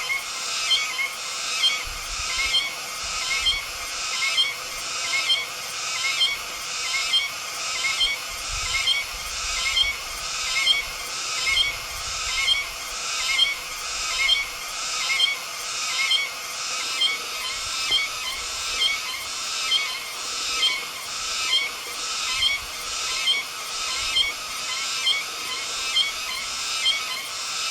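Cicada calling: a high buzzing song repeated in even phrases a little over a second apart, each swelling to a sharp peak.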